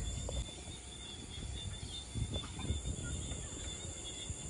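Evening outdoor ambience: a steady, high-pitched insect trill, like a cricket chorus, over low wind rumble on the microphone, with a few faint short bird calls.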